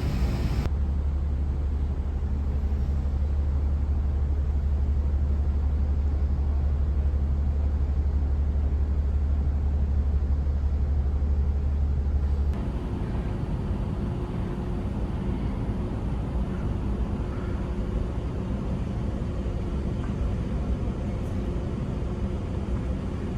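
Steady low engine rumble. About halfway through it changes abruptly to a quieter, lighter rumble.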